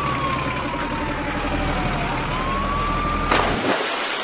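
Heavy truck engine sound running with a whine that slides down in pitch and climbs back up, cut off a little over three seconds in by a sudden loud splash as the toy crane truck drops into muddy water.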